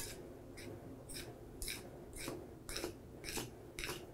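A fork stirring dry flour, yeast and salt in a bowl: soft scratchy strokes, about two a second.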